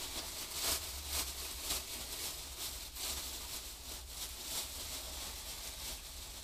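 Thin plastic carrier bag rustling and crinkling as it is handled, in short irregular crackles over a low steady hum.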